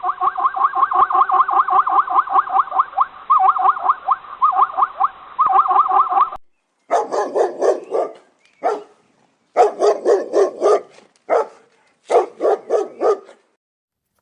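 Animal calls in two recordings. First comes a fast, steady run of repeated pitched calls lasting about six seconds. Then come four or five short bursts of rapid, sharper calls with pauses between them.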